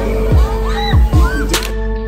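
Background music: deep kick drums that drop in pitch, hitting about three times, under sustained synth notes, with sharp clicks and some gliding higher tones.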